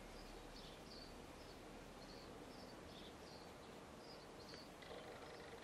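Near silence: quiet room tone with faint, short high chirps repeating irregularly about twice a second, typical of a small bird calling.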